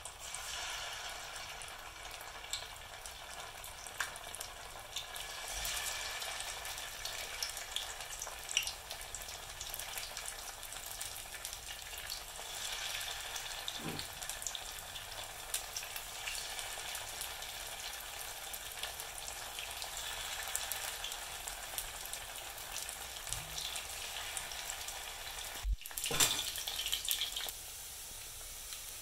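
Batter-coated rice balls deep-frying in hot oil in a pan: a steady sizzle with many small crackles and pops. The sound briefly drops out about three quarters of the way through.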